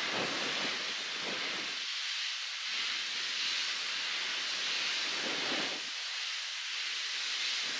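Steam locomotive hissing steam steadily, with deeper surges near the start and again about five seconds in.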